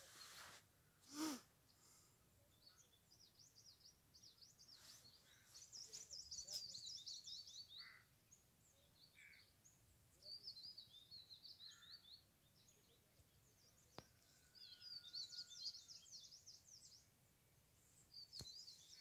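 Small birds singing: faint, rapid high chirping trills in bursts every few seconds, with a soft bump about a second in.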